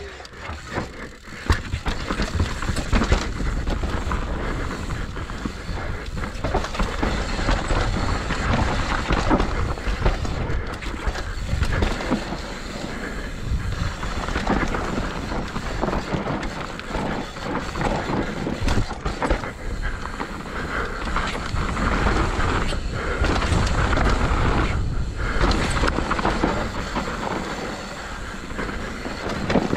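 Mountain bike rolling fast down a dirt and rock trail: knobby tyres crunching over the ground, with the chain and frame rattling over bumps and wind rushing on the camera microphone.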